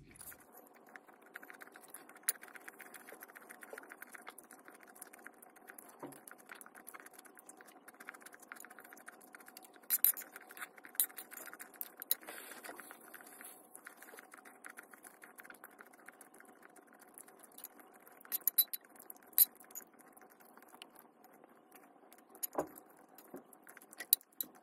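Close-up eating sounds: chewing and a metal fork clicking and scraping on a plate, in scattered short clicks with a few louder ones, over a faint steady hum.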